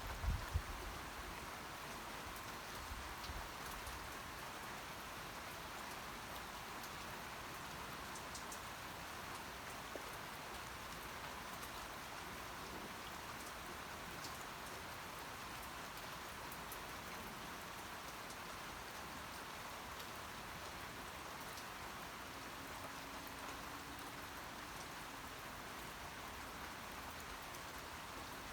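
Steady rain falling, an even hiss of drops with a few scattered drip ticks, and a few low thuds in the first second.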